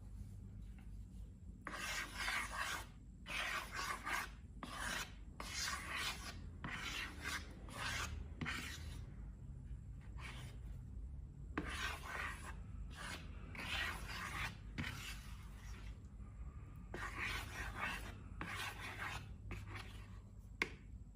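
Slime being mixed and worked by hand: a run of rasping, rubbing strokes, each about half a second long, beginning about two seconds in.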